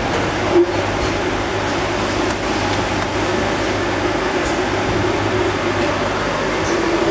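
Steady hum and rushing noise of machinery running, with a brief knock about half a second in.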